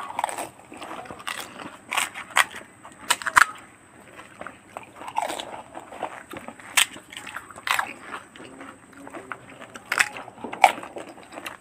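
Crisp fuchka (pani puri) shells cracking and crunching as they are broken open with fingers and bitten, with chewing in between. Sharp cracks come about once a second.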